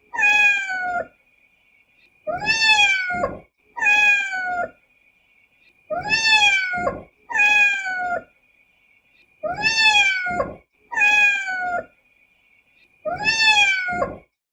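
A cat meowing repeatedly, mostly in pairs of meows about a second long, each rising and then falling in pitch. The same pattern comes back about every three and a half seconds.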